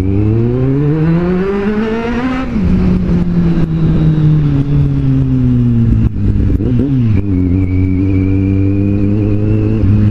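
Kawasaki Z750's inline-four engine pulling hard with rising pitch, shifting up about two and a half seconds in, then revs sinking slowly as the throttle eases off. A short dip and rise in the revs comes near seven seconds in, and the engine then runs steady.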